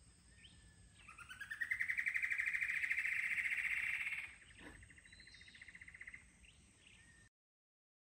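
A male antbird singing: a fast trill of notes that rises in pitch and then levels off over about three seconds, followed by a fainter, shorter trill.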